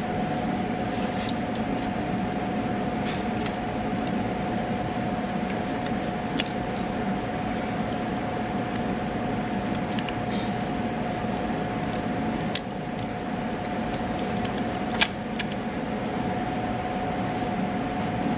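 Steady mechanical hum with one constant tone, with a few light clicks as a plastic wiring-harness clip is worked loose from a truck's frame by hand; the sharpest clicks come about two-thirds of the way through and again a little later.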